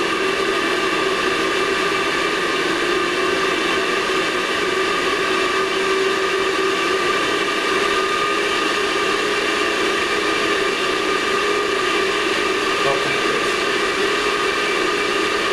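Steady whirring hum of a gas boiler's combustion fan running, with constant tones over a rushing noise that holds level throughout.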